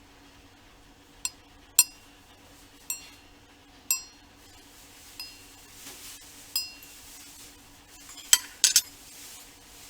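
Ceramic coffee cup clinking: short ringing clinks, six spaced roughly a second apart, then three in quick succession near the end.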